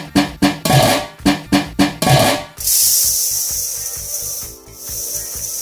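A run of drum-like music beats, then from about two and a half seconds in, a steady hiss of dry basmati rice pouring into a stainless steel bowl, which briefly fades about two seconds later and picks up again.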